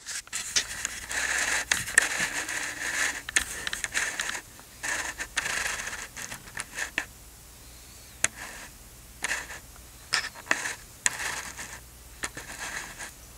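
Scratchy rustling and scraping from a hand stroking and scratching a dog's fur. It comes in a dense stretch for the first four seconds or so, then in short bursts with scattered sharp clicks.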